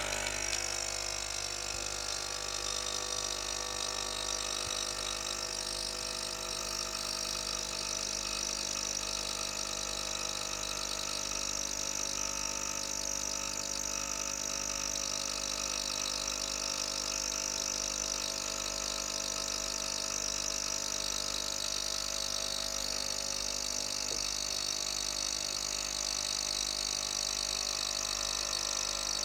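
Nespresso by Magimix capsule machine brewing: its pump buzzes steadily as it pushes hot water through the capsule and coffee runs into the cup.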